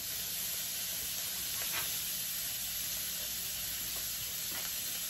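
Raw shrimp frying in melted margarine in a cast-iron skillet: a steady sizzle with a couple of faint pops.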